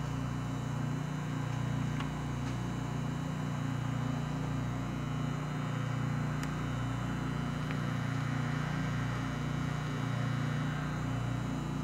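Steady low hum of an SST 2200 Turbo vacuum furnace running with its vacuum pump on, holding the chamber under vacuum while it heats up. A few faint ticks sound over the hum.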